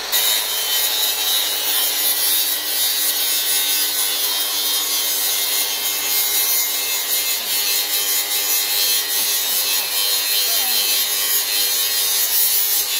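Electric power tool cutting metal, running steadily under load with a loud hiss. It stops suddenly near the end.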